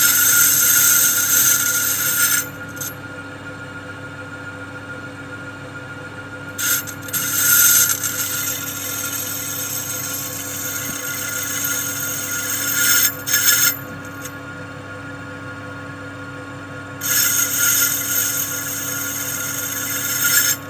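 Metal lathe running steadily while the cutting tool bores out a Holset H1C turbo compressor plate to take an HX40 86 mm compressor wheel. Three cutting passes sound as loud, hissy scraping over the lathe's hum: one at the start, a longer one from about a third of the way in, and one near the end.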